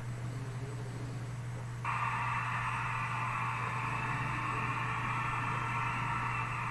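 Steady low hum under an even hiss; the hiss gets suddenly louder about two seconds in and then holds steady.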